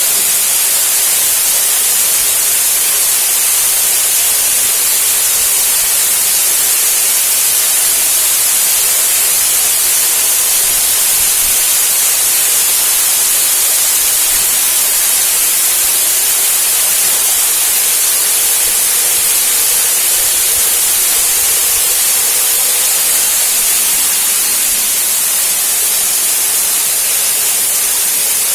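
Waterfall pouring, a loud, steady rushing hiss that never lets up.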